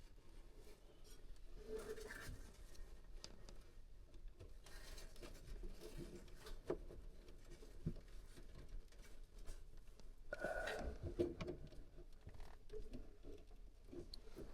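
Faint handling noise: scattered small clicks and rustles of hands working on wiring, with a slightly louder rustle about ten seconds in.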